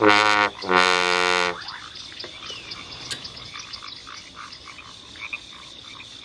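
Trombone playing two held notes, the second higher, ending about a second and a half in. Then frogs calling in short croaks, about three a second, over a steady high tone.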